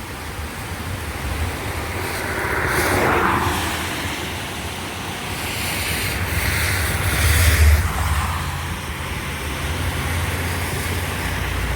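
Wind and rain blowing across the phone's microphone, a steady noisy rumble that swells twice, about three seconds in and, louder, a little past the middle.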